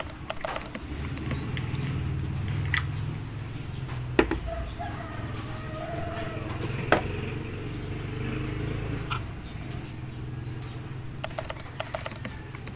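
Small plastic camera parts clicking and rattling in the hands as a mini tripod is taken off a DJI Pocket 2 and a neck-mount frame is handled, with two sharp clicks about four and seven seconds in. A low steady rumble runs underneath.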